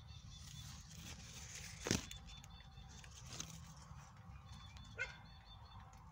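Quiet outdoor background with faint high chirps, broken by a few short sharp sounds: a loud one about two seconds in and smaller ones at about three and a half and five seconds.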